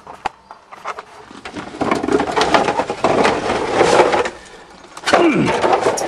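Rattling and rustling as the door of an old Chrysler van is tried and does not open, in two noisy spells, the second near the end.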